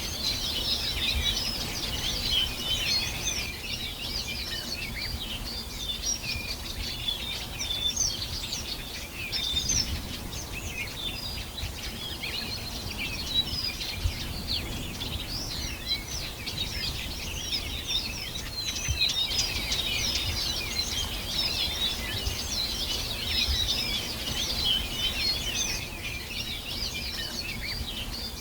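Many small birds chirping and singing at once, a dense, continuous chorus of short overlapping high-pitched calls, over a low background rumble.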